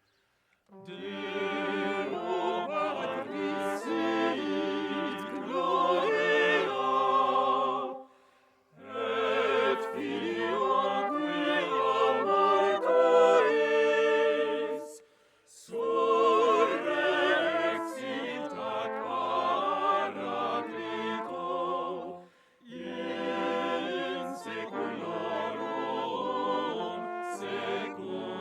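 Small vocal ensemble singing medieval sacred chant in several voices. It sings in four long phrases, each ending in a short pause for breath.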